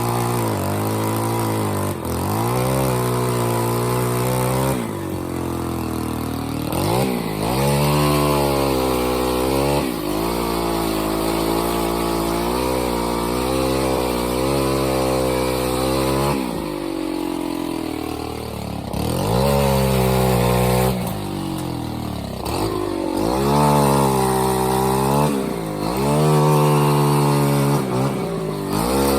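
Gas-powered tree-trimming saw engine revving up and falling back over and over, its pitch climbing and dropping every second or two.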